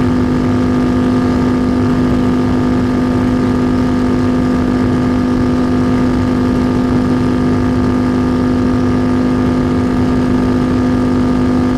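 Yamaha Bolt's air-cooled V-twin with a Vance & Hines exhaust running flat out at a steady, unchanging pitch while the bike is held near its top speed, with wind rushing over the microphone.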